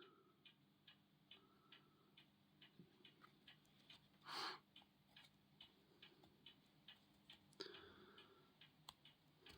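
Faint steady mechanical ticking, about two to three ticks a second, with a brief rustle about four seconds in as a watch strap is handled and buckled.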